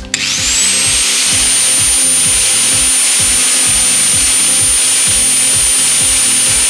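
Angle grinder switched on just after the start, its whine rising quickly to a steady high pitch, then its cutoff disc cutting into a metal hex nut held in a vise. Background music with a steady beat plays underneath.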